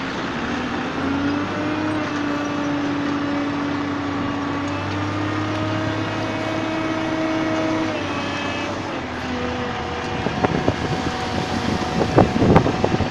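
Heavy diesel machinery running steadily with a droning tone that drops in pitch a little after about eight seconds, then a run of knocks and clatter near the end.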